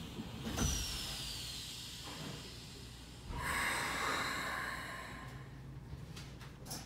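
Keikyu 1000 series commuter train standing at a platform with a low hum. About three seconds in comes a sharp hiss of compressed air from the train's air system, which fades over a couple of seconds. A few clicks follow near the end.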